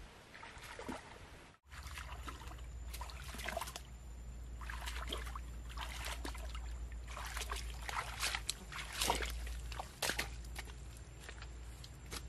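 Bare feet wading through shallow muddy creek water: a run of irregular sloshes and splashes over a low steady rumble, dropping out for a moment about a second and a half in.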